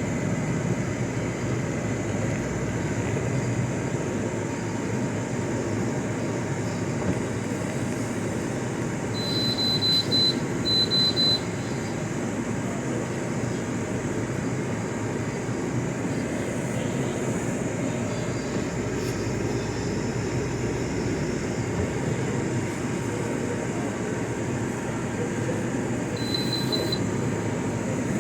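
GE dehumidifier running at maximum, a steady noise of fan air and compressor. Short high-pitched electronic beeps sound twice about ten seconds in and once near the end.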